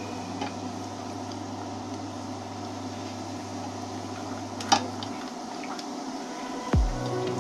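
Kerupuk crackers frying in hot oil in a nonstick pan, a steady sizzle under a low hum that stops about five seconds in, with one sharp tap near the middle. Near the end a falling electronic sweep comes in.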